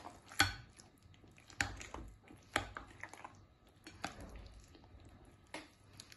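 A metal fork stirring grated cassava and raw eggs in a glass bowl: sharp clinks of the fork against the glass, irregularly about once a second, with soft wet mixing between them.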